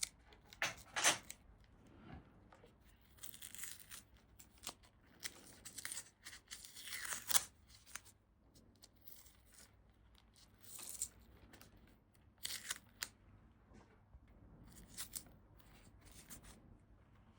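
Tape being pulled and torn off a wiring harness, in short irregular strips with handling rustle in between.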